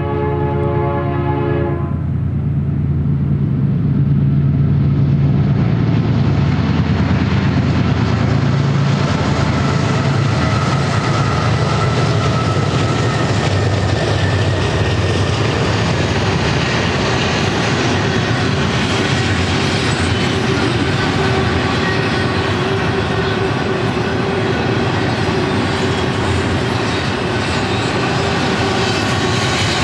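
A GE diesel locomotive's horn sounds and cuts off about two seconds in. The locomotive then passes with the low rumble of its engine, followed by the steady rolling noise and rattle of double-stack container well cars on the rails.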